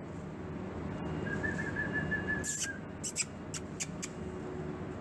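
One steady, slightly fluttering whistled note held for about a second and a half, a person whistling to call a dog, over the ship's steady rumble. A few short sharp clicks follow.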